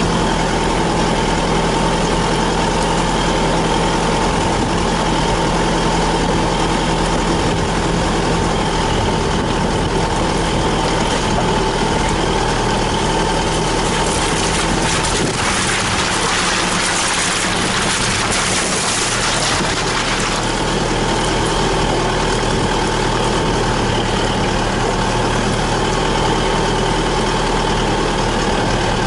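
Isuzu 4WD's engine running steadily during off-road driving, with a rushing hiss lasting about five seconds midway while the engine note shifts.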